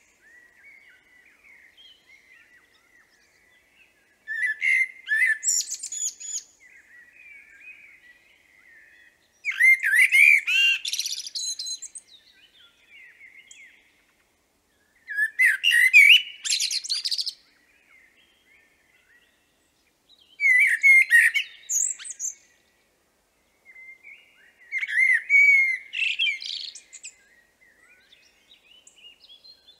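Common blackbird singing: five loud song phrases about five seconds apart, each a low fluty warble that breaks into a high, squeaky twitter, with quieter song between them.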